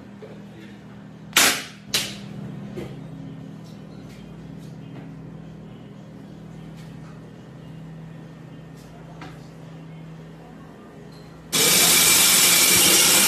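Two sharp knocks about half a second apart as a butcher's knife works through a rack of beef ribs onto a plastic cutting board, over a steady low hum. Near the end a loud steady hiss starts suddenly.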